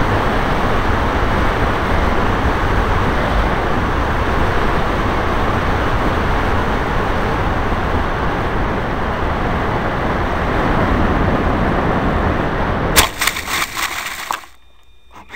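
Loud, steady rushing of air and machine noise picked up by the camera on a model motor glider as it runs fast across grass. About 13 seconds in it turns into a burst of crackling and rattling as the glider scrapes through the grass to a stop, and then the sound drops away to much quieter.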